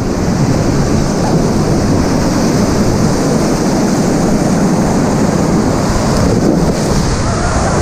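Whitewater rapid rushing and splashing loudly around an inflatable raft as it runs through the rapid.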